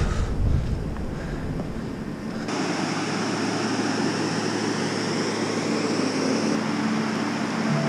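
Steady rushing noise that changes abruptly a little over two seconds in to a brighter, hissier rush without the deep rumble. Soft music with held notes comes in at the very end.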